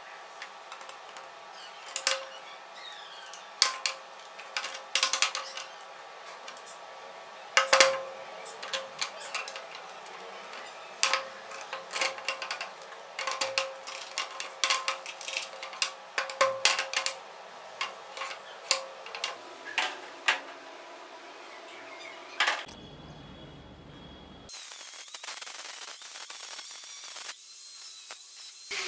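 Rigid PVC pipes and elbow fittings clicking and knocking as they are pushed together and handled on a wooden tabletop, a sharp tap every second or so. Near the end an angle grinder makes a steady hiss as it cuts through wire mesh.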